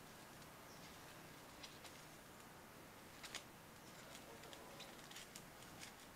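Near silence with faint, scattered small clicks and rustles of hands handling a ribbon and a styrofoam snowman while tying a knot.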